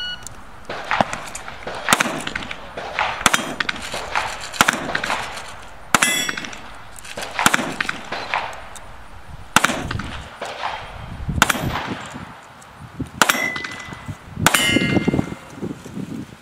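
Rifle shots fired at steel plate targets, about ten in all, spaced a second or two apart; several of the hits leave the steel plates ringing.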